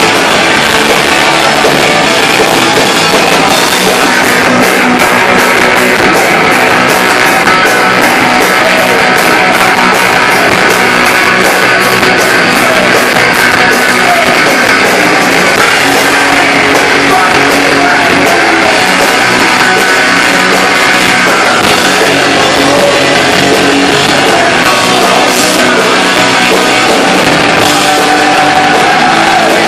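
Live punk rock band playing loud: electric guitars over bass and a drum kit, recorded close to the stage. The cymbals keep up quick, even strokes through most of it.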